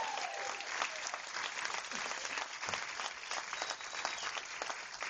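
Audience applauding at the end of a song, with a few voices calling out near the start.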